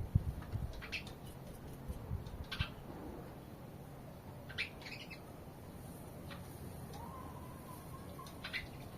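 Sparrows chirping: scattered short, separate chirps every second or two, over a low rumble with a few dull thumps in the first couple of seconds.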